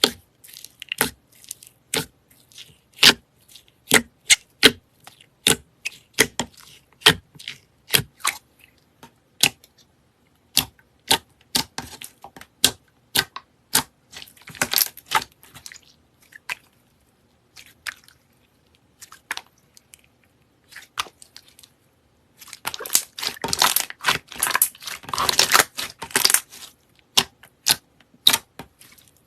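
Slime being worked by hand, giving sharp sticky pops and clicks about one or two a second, with a dense stretch of crackling about three-quarters of the way through.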